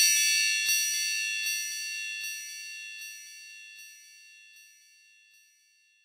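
Wind chimes ringing, with light strikes under a second apart, each fainter than the last; the high ringing tones die away to near silence near the end.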